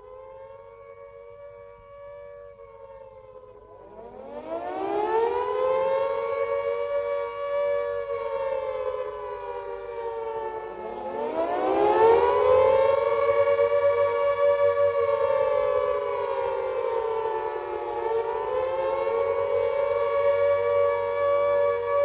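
British Second World War air raid sirens sounding the warning: a rising and falling wail. A faint siren is already going, then louder sirens wind up one after another, about four and eleven seconds in, and overlap as their pitches waver up and down.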